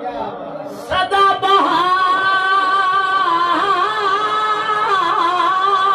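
A man singing Punjabi Sufi kalam unaccompanied. About a second in he starts one long held note and sustains it, wavering through melismatic ornaments.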